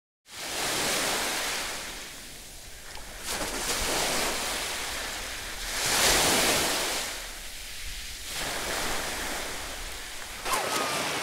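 Sea surf washing onto a beach, a rush of water noise that swells and fades every two or three seconds.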